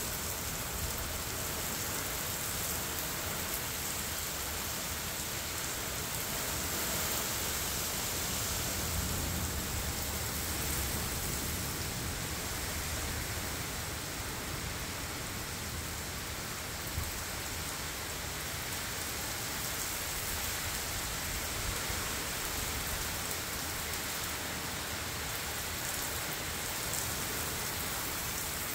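Torrential rain pouring steadily in a severe thunderstorm, with a low rumble swelling now and then beneath it.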